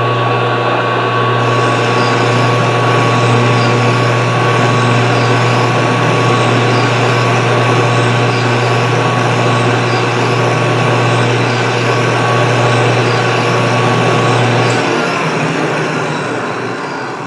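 Colchester lathe and its rotary phase converter running with a steady hum while a power threading pass is cut; a higher hiss joins about a second and a half in. About 15 seconds in the drive is shut off and the sound winds down.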